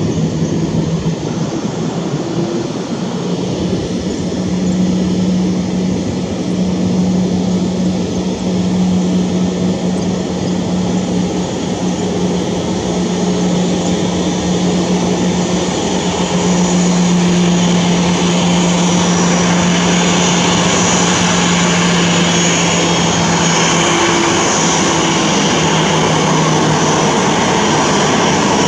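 Boeing 737-800's CFM56-7B turbofan engines running at taxi idle as the airliner taxis: a steady hum and jet whine. It grows louder and brighter from a little past halfway as the aircraft turns and comes closer.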